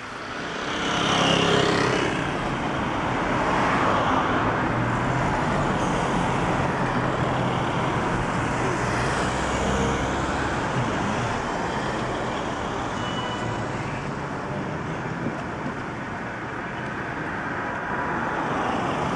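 Steady city road traffic: a continuous wash of car and van engines and tyres on the boulevard, swelling as a vehicle passes close about a second in.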